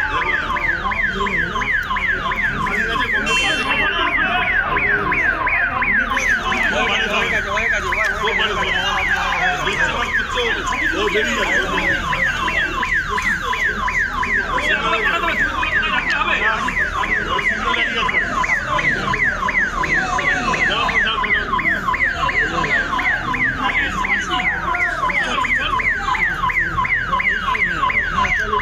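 Electronic warning alarm sounding without a break: a high falling tone repeating several times a second, over a murmur of crowd voices.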